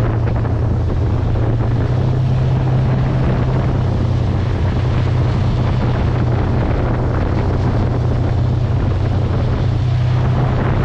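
Towboat's engine running steadily under way while towing another boat on a line astern, a constant low drone. Wind buffets the microphone and the wake rushes along the hull.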